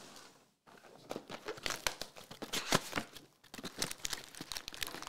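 Foil trading-card pack wrapper crinkling and tearing as it is opened by hand, a dense run of irregular crackles starting about a second in.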